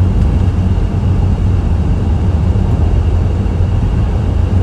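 Loud, steady rumbling noise with a hiss over it, deepest in the low end, cutting in suddenly at the very start.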